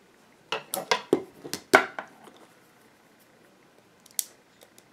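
Metal scissors rapped against a plastic Easter egg shell around cured resin, trying to crack it open: a quick run of about seven sharp knocks, then one more click near the end.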